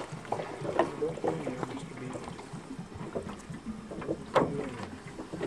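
Water sloshing and splashing as plastic water jugs are refilled, with a few sharp knocks, the loudest about a second in and near the end, from the jugs being handled.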